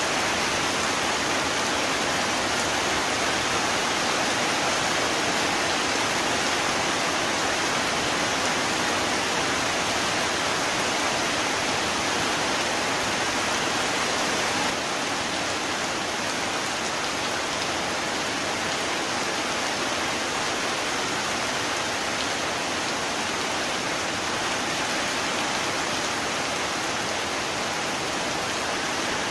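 Steady heavy rain falling, a dense even wash of sound with no thunder, becoming slightly quieter about halfway through.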